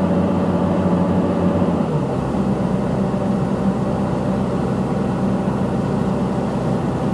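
Caterpillar 320C excavator's diesel engine running steadily; about two seconds in its note changes and settles lower.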